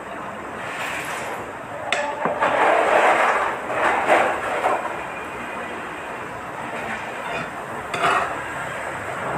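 Sharp clinks and knocks of a drinking glass and tableware against a table, a few of them spread out, over steady background noise.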